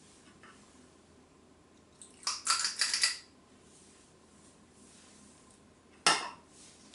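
Metal spoon clinking against a stainless-steel mixing bowl: a quick run of clinks about two seconds in, then a single knock near the end.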